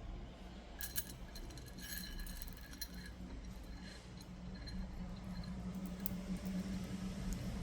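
Stone beads (black tourmaline and clear quartz) clicking and clinking against each other as they are handled and strung onto a bracelet, a few light clinks with a brief glassy ring over the first half.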